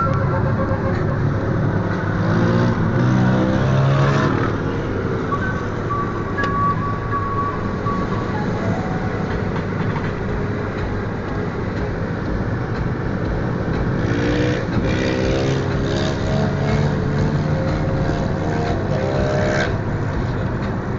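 Supermoto motorcycle engines revving and pulling up through the gears, heard as rising revs a few seconds in and again several times from about two-thirds of the way through. Under them is the steady drone of road and engine noise inside a moving car.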